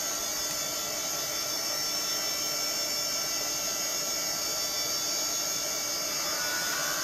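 Apricot XEN-S 386 computer running during a reboot, with the steady whirr of its cooling fan and drives carrying a few constant tones.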